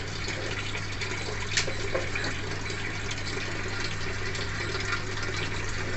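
Samsung Wobble 6.2 kg top-loading washing machine filling its tub with water during the Eco Tub Clean cycle: a steady rush of water pouring in, with a low steady hum underneath.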